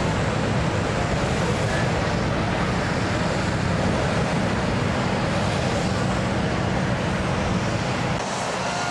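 Wind buffeting the camcorder microphone: a steady rushing noise with a heavy low rumble.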